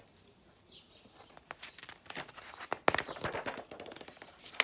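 Paper handling of a paperback picture book as a page is turned: light rustling with soft clicks and crinkles, starting about a second in and getting busier towards the end.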